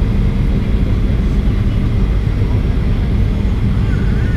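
Steady cabin noise of a Boeing 737-800 descending on approach, the low rumble of its CFM56-7B jet engines and airflow heard from a window seat beside the engine.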